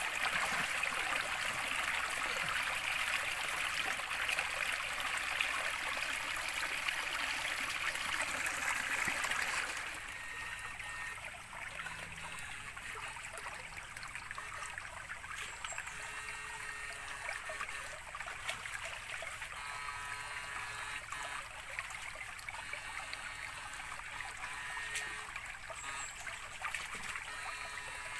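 Shallow stream running over rocks. The water is loud and close for about ten seconds, then drops suddenly to a quieter, steady flow.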